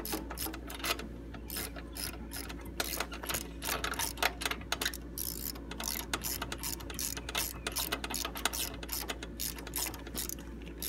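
Hand ratchet clicking in quick, irregular runs as its pawl skips on each back-swing, driving a socket to thread a new spark plug into a Kawasaki mower engine.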